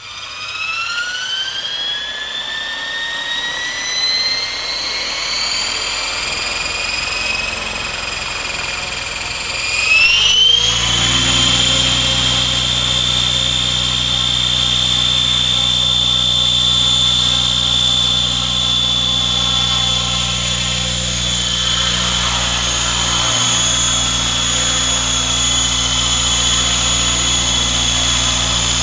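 Electric RC helicopter spooling up: its motor whine climbs steadily for about ten seconds, then jumps up and holds at a steady pitch once the governor holds the head speed, with the low hum of the spinning rotor joining in.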